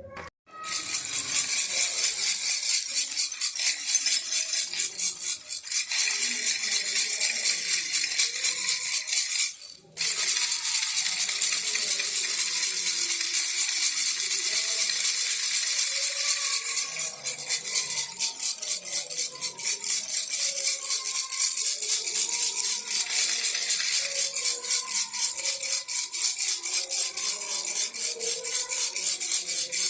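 Baby rattle shaken quickly and without letup, a dense fast rattling of small beads inside. It stops briefly about ten seconds in, then starts up again.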